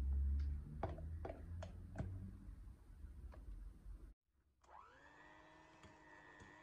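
A dull thump and a few light clicks as whipped cream is added to cream cheese in a glass bowl. About four seconds in, an electric hand mixer starts, spinning up and then running at a steady pitch as its beaters whip the cream cheese frosting.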